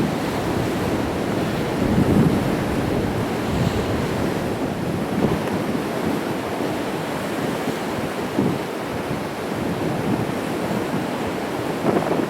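Sea waves breaking and washing against rocks: a continuous rushing wash, with louder surges about two seconds in and near the end.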